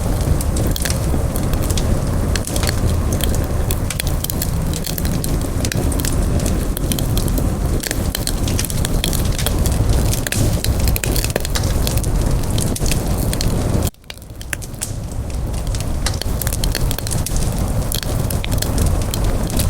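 Campfire burning, wood crackling and popping in dense, irregular snaps over a steady low rumble of flame. About fourteen seconds in the sound cuts out abruptly for a moment, then comes back.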